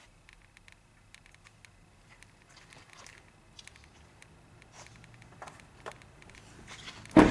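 Faint scattered clicks and rustling from the camera being handled, then near the end a single loud thud as the pickup truck's door is shut.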